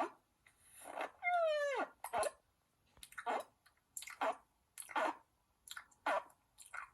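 A cartoon gulp sound effect played over and over: short gulping sounds, roughly one a second, with one longer gulp that rises and falls in pitch about a second and a half in.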